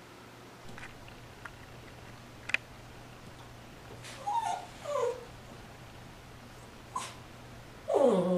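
Puppy with the hiccups: a few short, sharp hics at uneven intervals and several brief whimpering squeaks that fall in pitch, the loudest and longest near the end.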